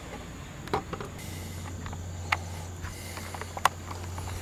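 Hand-held camera being handled and turned round: a few light clicks and knocks, over a low steady hum that begins about a second in.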